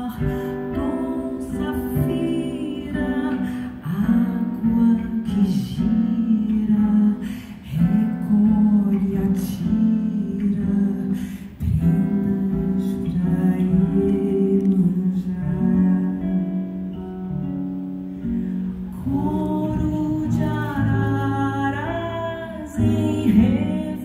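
A woman singing into a microphone, accompanied by an acoustic guitar, in a live song performance.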